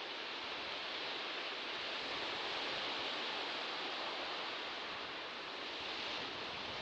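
Sea surf washing steadily, a continuous soft hiss that swells gently a few seconds in and then eases.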